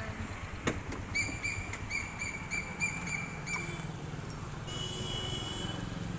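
A rapid run of short, high chirps, about five a second for two to three seconds, from a small animal, followed near the end by a higher, thinner call. Underneath is a steady low rumble of traffic.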